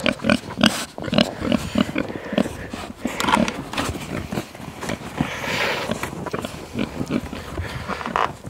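Pigs grunting in a quick run of short grunts, several a second at times, as they come out of the pen. There is a brief rustling noise about five seconds in.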